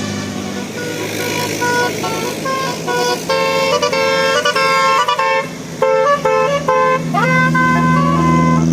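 Bus's Basuri telolet musical horn playing a quick tune of short stepped notes starting about a second and a half in, then gliding up into a long held note near the end, over the low hum of the bus's engine.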